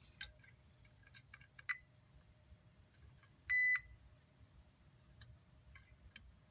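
A multimeter gives one short, steady beep about halfway through as its probes touch a component on the amplifier board. Faint clicks of the probe tips tapping the board come before and after it.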